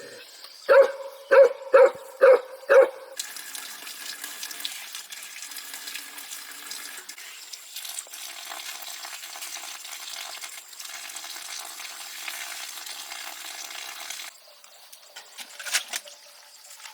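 A dog barks five times in quick succession, then water runs steadily, like a tap or hose, for about eleven seconds and stops abruptly; a few light knocks follow near the end.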